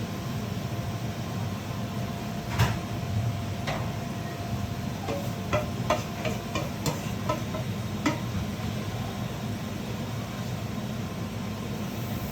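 Kitchen clatter: a dozen or so sharp clicks and knocks of utensils or cookware, loudest at first and then in a quicker run, over a steady low hum.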